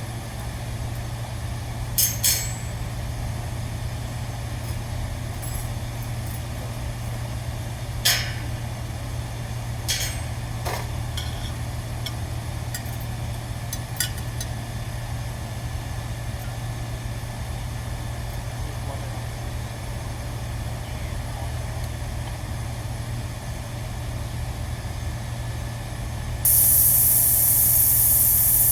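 Steady low machinery hum with a few sharp metal clicks and knocks, then a loud hiss, like escaping compressed air, that starts suddenly near the end.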